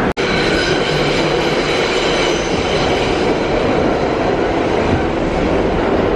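Passenger train running, heard from inside the car: a steady loud rumble with a faint high whine. The sound drops out for an instant just after the start.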